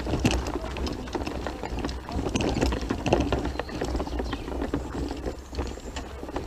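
Footsteps of several people crunching irregularly on a loose gravel and stone track, with a steady low rumble underneath.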